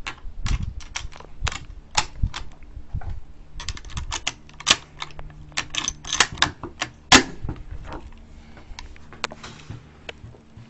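Mosin-Nagant bolt-action rifle being loaded by hand: a quick run of sharp metallic clicks as cartridges are pushed down into the magazine through the open action. The loudest click comes about seven seconds in, and only a few faint clicks follow.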